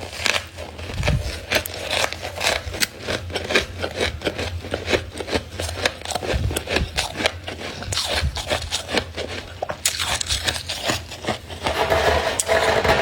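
Thick freezer frost being scraped and crunched, a quick crackly run of scrapes that grows louder and fuller near the end.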